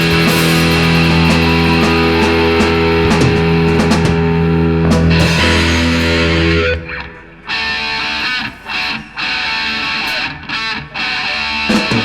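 Instrumental rock music with distorted electric guitar. A dense held chord sounds until about seven seconds in, then breaks off into short, stop-start guitar phrases.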